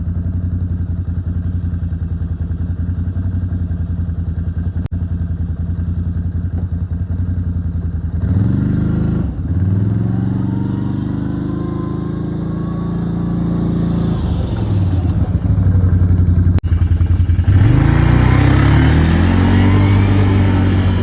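A vehicle's engine running steadily, then revving up and easing off in pitch twice as the vehicle pulls away and slows.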